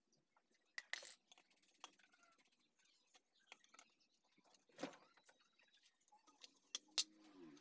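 Faint clicks, taps and scrapes of thin wooden sheath boards being handled and marked with a knife point. The loudest are a short scrape about a second in, a knock near the middle and a sharp click near the end.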